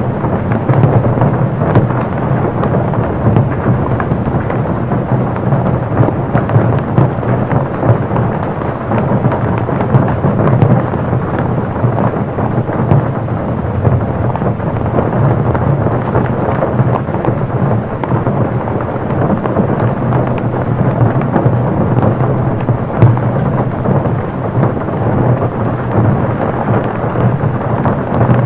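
Torrential rain pouring steadily onto a car, a dense unbroken patter of drops.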